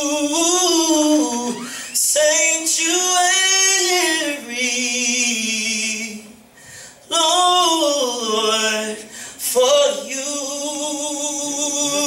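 A man singing a cappella, unaccompanied, through a microphone and PA, in gliding, ornamented gospel-style phrases. There is a brief pause about six seconds in, and near the end he holds one long steady note.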